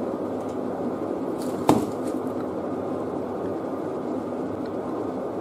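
Steady low background noise, an even hiss-like hum, with one sharp click a little under two seconds in.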